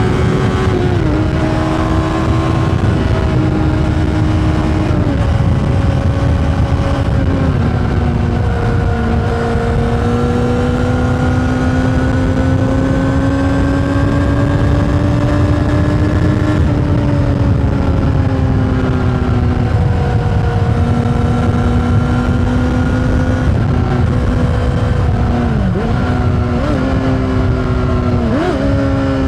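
Honda CBR600RR's inline-four engine with an Akrapovič exhaust, heard from on board while riding: the engine note steps down in pitch several times early on, holds a steady, slowly rising cruise through the middle, then dips and jumps sharply in pitch twice near the end. Low wind rush sits under the engine throughout.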